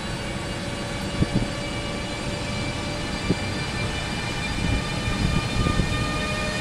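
Siemens Taurus electric locomotive (EU44 Husarz) pulling away with a long passenger train: its traction converters whine in several steady tones that slowly rise in pitch as it gathers speed, over a low rumble that grows toward the end. A few short sharp knocks come about a second in and again about three seconds in.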